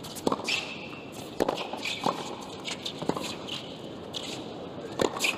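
Tennis rally on a hard court: sharp pops of racquets striking the ball and the ball bouncing, about a second or so apart, with brief high squeaks of shoes on the court between shots.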